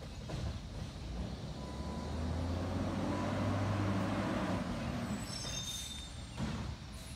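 CNG garbage truck (2009 Autocar ACX with a Heil Odyssey body) accelerating between stops, its engine drone swelling and then easing off. About five seconds in, a high brake squeal and a burst of air hiss come as it pulls up to the next cart.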